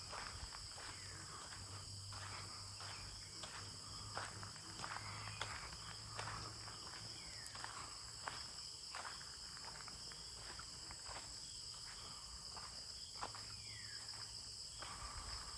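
Steady chorus of insects shrilling at two high pitches, with scattered soft clicks and knocks.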